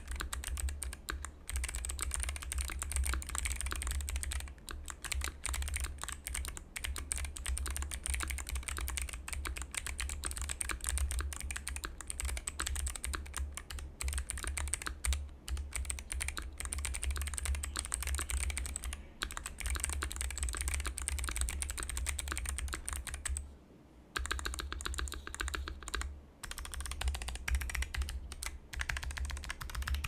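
Fast typing on a Keychron Q1 mechanical keyboard with lubed Kailh Box Jade clicky switches on a steel plate. It makes a dense stream of crisp clicks, mixed with the lower thock of the spacebar. The typing breaks off briefly about three quarters of the way through.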